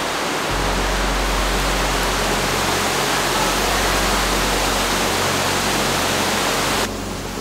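Loud, steady rush of spring water streaming and falling from the rock ceiling and walls inside a tunnel cave. A little before the end the rush drops slightly and loses its top hiss.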